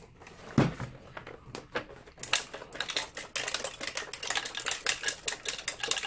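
A loose object rattling inside the plastic housing of an Optoma HD20 DLP projector as the unit is shaken and tilted. One knock comes about half a second in, then fast, irregular clicking from about two seconds in.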